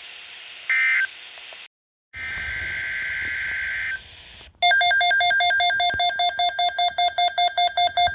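Emergency Alert System data bursts over weather radio: a short digital beep ending about a second in, then a longer buzzing data burst from about two to four seconds in. About four and a half seconds in, a loud electronic alert tone starts, pulsing about four to five times a second, announcing the next alert.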